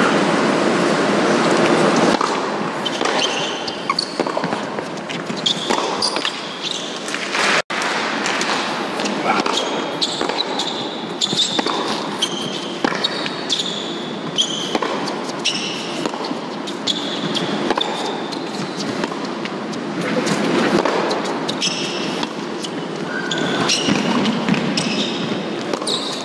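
Indoor hard-court tennis play: the ball struck by rackets and bouncing on the court, with short high sneaker squeaks, over the steady noise of a crowd in a large hall. Applause is heard over the first couple of seconds, and the sound cuts off abruptly for a moment about eight seconds in.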